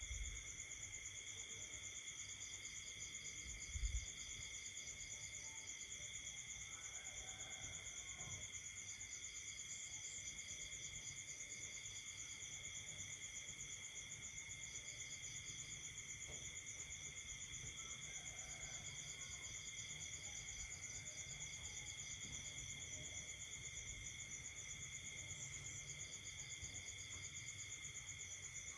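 Night chorus of crickets and other insects: several steady high trills at different pitches, with one pulsing trill coming and going in bouts of a few seconds, and faint scattered frog calls beneath. A brief low thump about four seconds in.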